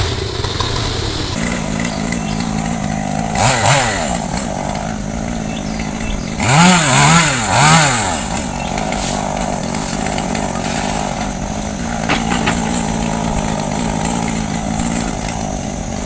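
Chainsaw idling steadily, revved up briefly about three and a half seconds in and twice more around seven seconds in.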